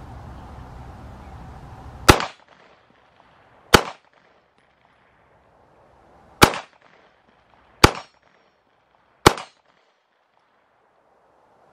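Five single shots from a PSA Dagger 9mm pistol, fired one at a time about one and a half to two and a half seconds apart, starting about two seconds in.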